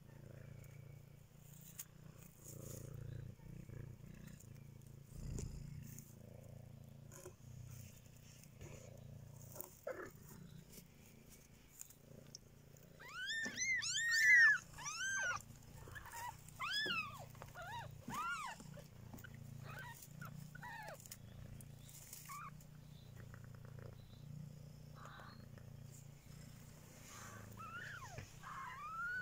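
Domestic cat purring steadily close up. About halfway through comes a quick run of high, arching mews, rising and falling in pitch, with a few more near the end.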